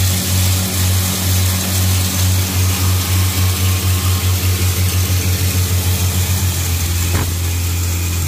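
Bo'ron electric hammer-mill feed grinder running under load, milling maize into fine meal. A strong steady motor hum sits under a hiss of grain and meal blowing through the mill. The hum pulses about three or four times a second, then evens out near the end.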